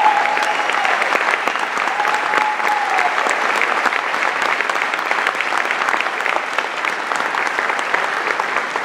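Large audience applauding steadily in a theatre hall, the clapping easing slightly toward the end.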